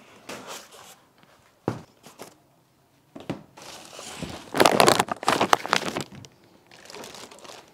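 Clear plastic bag crinkling and rustling as the wrapped model tractor is handled and lifted out of its cardboard box, loudest a little past halfway. A single sharp knock comes a little under two seconds in.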